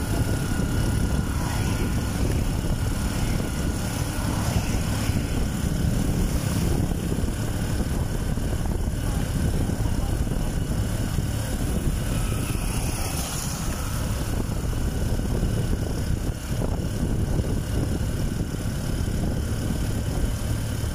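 Steady low drone of a moving vehicle's engine and road noise, heard from on board, with no change in pace.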